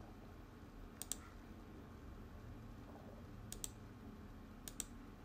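Computer mouse clicking: three quick pairs of sharp clicks, about a second in, around three and a half seconds in and near the end, over a faint low room hum.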